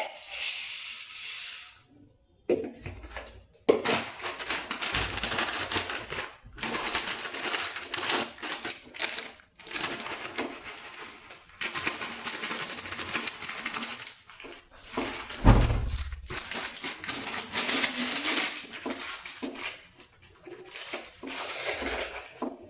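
Kitchen food-preparation sounds: rapid clattering and rustling of ingredients and utensils in a bowl, in long stretches broken by short pauses.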